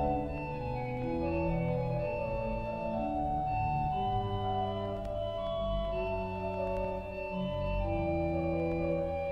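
The St Davids Cathedral pipe organ playing a slow piece in several parts: long held notes moving over sustained low bass notes.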